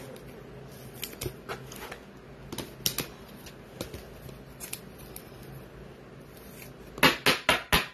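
Trading cards being slid into clear plastic penny sleeves and a rigid toploader: scattered soft crinkles and clicks of the plastic, then four quick loud sharp clacks near the end.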